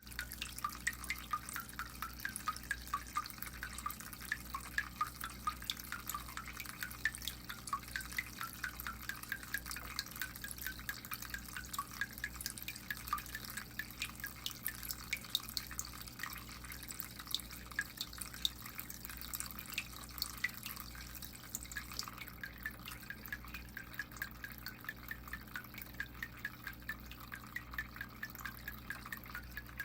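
Water in an indoor turtle habitat dripping with a quick, musical plinking, several drops a second at varying pitches, over a low steady hum.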